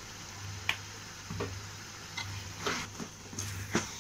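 A steel spoon stirring spice powder into frying tomatoes and onions in a metal kadai. About six short scrapes and clicks of spoon on pan come irregularly, over a low steady hum.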